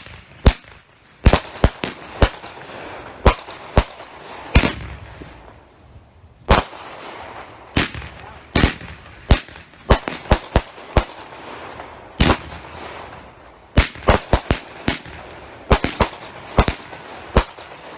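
A 24-shot consumer firework cake firing: a long, irregular series of sharp bangs, sometimes several in quick succession, with a hiss between them.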